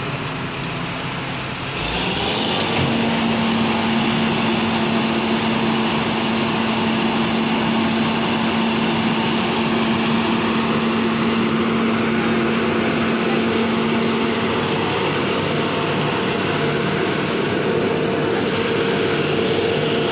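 A heavy vehicle or machine engine running steadily, louder from about two seconds in, with a steady hum that shifts higher near the end.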